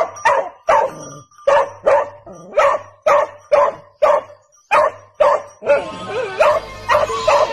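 A dog barking again and again, about two barks a second. Music comes in under the barks in the last couple of seconds.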